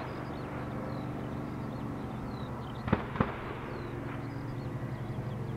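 Distant Spitfire T9's Rolls-Royce Merlin V12 engine running with a steady drone, getting a little louder near the end. Two sharp cracks about a quarter second apart come about three seconds in.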